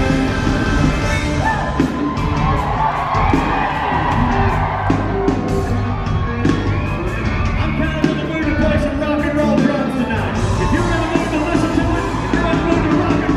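Live country-rock band playing loudly: electric guitars over a steady drum beat, with singing and shouts from the crowd.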